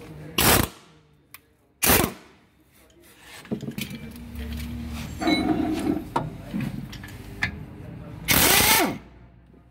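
Pneumatic impact wrench fired in bursts on the front-wheel bolts: two short bursts near the start, then a longer, louder burst near the end that falls in pitch as it runs down. Smaller knocks come in between.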